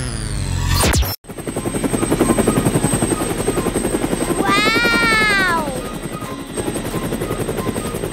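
Rapid, steady chopping pulse from an animated sound effect, starting about a second in as the intro music cuts off. In the middle, a whistle-like tone rises briefly and then falls.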